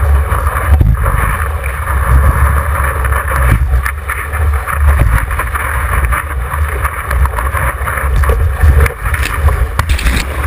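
Wind rumbling on the microphone of a GoPro mounted on the nose of a surfboard riding a wave, with a loud, uneven low rumble and a hiss of rushing water and spray; whitewater washes over the camera near the end.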